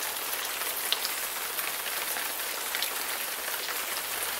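A steady, even hiss with scattered small ticks, of the kind that rain makes falling on a surface.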